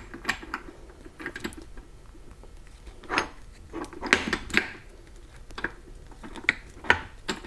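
Irregular light metallic clinks and knocks of steel gear parts being handled as a reverse idler gear is laid into a Borg Warner Super T10 four-speed transmission case.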